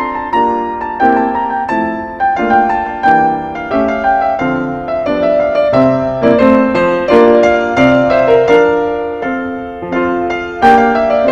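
Closing music played on piano: a gentle melody over chords, each note struck and then fading.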